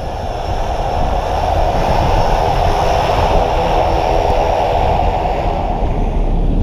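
Pilatus Porter jump plane's engine and propeller running steadily on the ground, rising in level over the first second.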